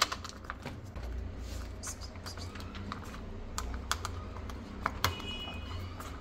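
Kittens eating from a plastic bowl: irregular small clicks and crunches of chewing and of food pieces landing in the bowl as wet food is squeezed in from a pouch. A short high-pitched squeak comes about five seconds in.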